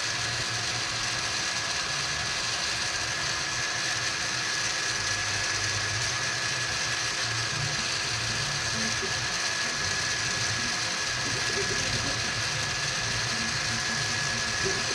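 FlashForge Adventurer 4 3D printer running a print: a steady fan hum with a thin whine, under stepper motors buzzing in short, changing spurts as the print head moves.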